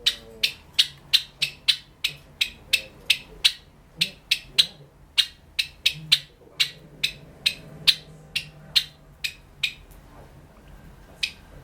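Sakura Java sparrow giving a steady string of sharp clicking notes, about three a second, the clicking of its song; they break off for a moment near the end.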